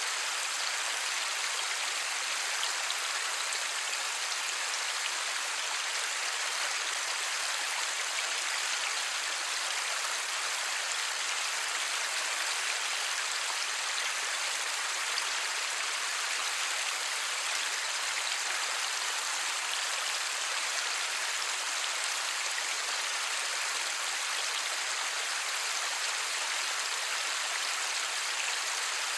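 Light steady rain falling, a dense even hiss of drops with no thunder.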